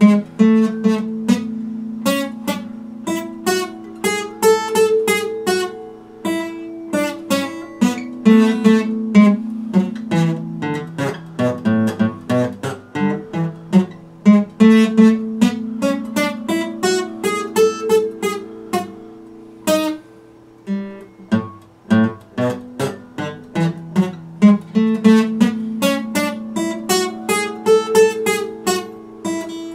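Epiphone acoustic guitar played solo, notes plucked in quick succession over ringing bass notes in a repeating pattern, with a brief lull about twenty seconds in.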